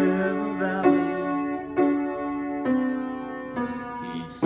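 Piano played slowly, a new chord struck about once a second, each ringing and fading before the next.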